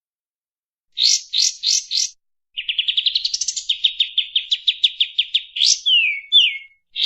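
Kapas tembak songbird singing: four quick rising notes, then a rapid, tightly spaced trill of repeated notes lasting about three seconds, ending in a few downward-sliding whistles.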